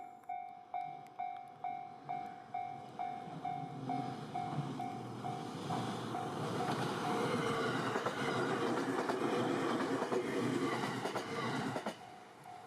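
Japanese level-crossing warning bell clanging about two and a half times a second while a diesel train passes over the crossing. The train's running noise builds from about four seconds in, drowns the bell, then stops abruptly near the end, when the bell is heard again.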